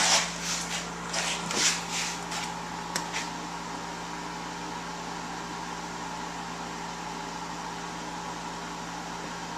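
Steady hum of a room air conditioner, with a few brief scraping and handling noises from hand tools on a carburetor in the first two seconds and a single click about three seconds in.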